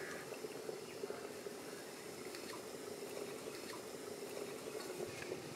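Water boiling in a metal steamer pot over a wood fire, a steady bubbling hiss with scattered faint clicks.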